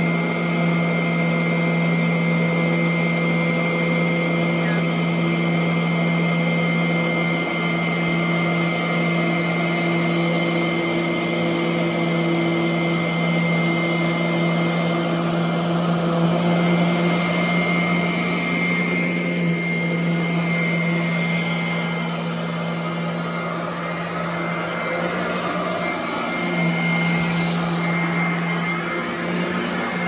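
Royal commercial upright vacuum cleaner running on carpet: a steady motor hum with a thin high whine and a rush of air, the level sagging a little in the second half as the nozzle is worked back and forth.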